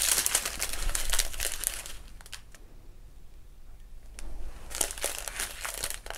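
Small clear plastic zip bags full of resin diamond painting drills crinkling as they are handled. There is a quieter pause of about two seconds in the middle.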